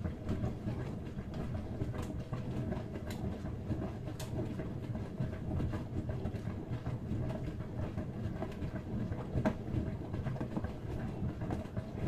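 Brandt 422 washing machine running a wash, the motor turning the drum with a steady hum as the laundry tumbles, with scattered sharp clicks.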